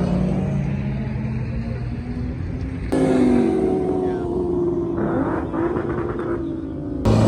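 Car engines revving and accelerating as cars drive past, their pitch falling and rising. The sound changes abruptly about three seconds in and again near the end.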